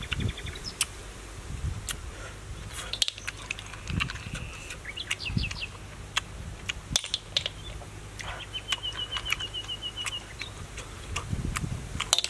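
Wild birds chirping, with short series of high repeated notes and a fast run of chirps about eight seconds in. Scattered sharp clicks and soft low sounds come from snail shells being picked open with a thin stick and the meat eaten.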